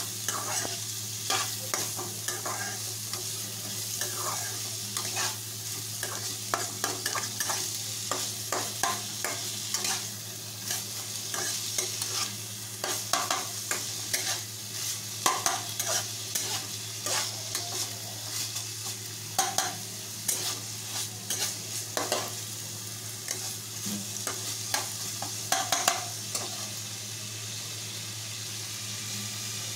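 Chopped onions sizzling in hot oil in a non-stick kadhai, with a steel spatula scraping and tapping the pan as they are stirred. The stirring strokes thin out near the end while the steady frying hiss carries on.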